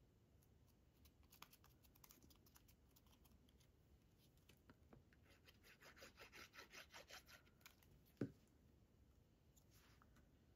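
Quiet handling of paper pieces with small ticks and rustles, then a rapid ticking run of about a second and a half while a fine-tip liquid glue bottle is squeezed onto a cardstock label. A single sharp knock about eight seconds in as the label is set down.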